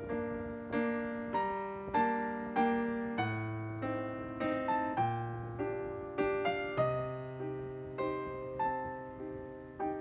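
Background piano music: a slow melody of single struck notes, a little under two a second, each fading away, over held low bass notes.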